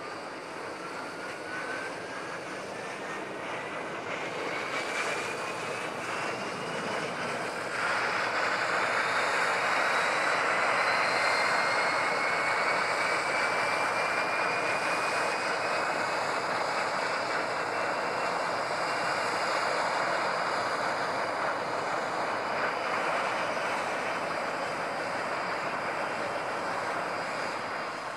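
A Tu-154M's jet engine spooling up: a whine that rises steadily in pitch for about fifteen seconds and then levels off, with a broad rushing roar that comes in about eight seconds in and holds.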